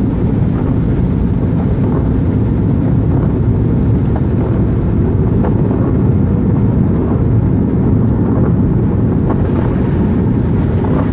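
Steady low rumble of a car driving on a wet highway, heard from inside the cabin: engine and tyre noise on the rain-soaked road.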